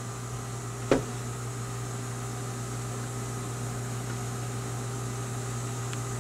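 Steady low electrical hum of room and equipment noise, with one sharp click about a second in and a faint tick near the end.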